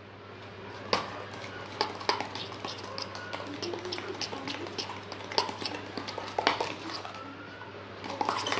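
A metal spoon clinking and scraping against the inside of a steel tumbler as it stirs a thick paste of marble powder and acrylic paint. The light clinks come irregularly, several a second.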